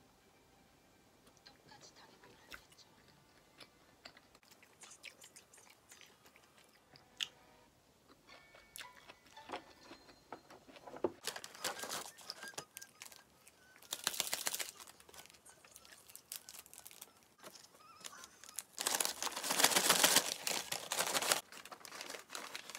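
A paper bag of fries with seasoning powder being shaken, in three bouts of loud papery rustling, the longest and loudest near the end. Before that, quiet chewing and small clicks.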